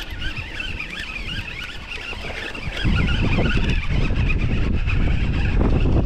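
Strong wind buffeting the microphone, a low rumble that turns much louder about three seconds in. Before that a thin, wavering high-pitched whine sits over it.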